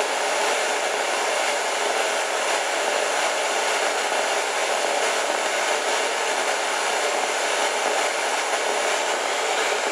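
Spirit box hissing out steady white noise, breaking up a little now and then.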